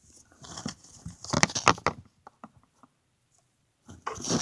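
Phone handling noise as the recording phone is set down: a run of knocks, taps and rustles close to the microphone, loudest about a second and a half in, then a short lull and more handling near the end.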